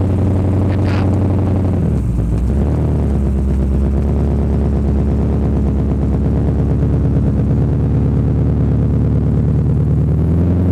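Modified Jaguar XJ sedan's carburettored engine running with a lumpy, pulsing idle; about two seconds in the revs dip, and near the end they rise as the car pulls away.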